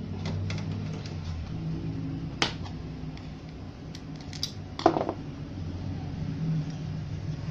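A few sharp clicks and light knocks as a small circuit board and its ribbon-cable plugs are handled, the loudest about five seconds in, over a steady low hum.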